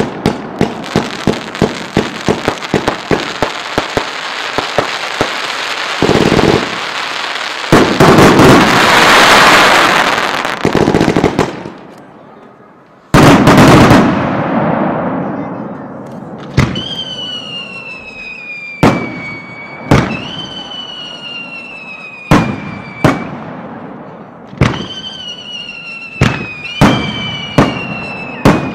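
Fireworks display heard close to the launch tubes: a dense stretch of rapid crackling and bangs with loud rushing swells, then a run of separate sharp bangs, each followed by a falling whistle lasting a second or two.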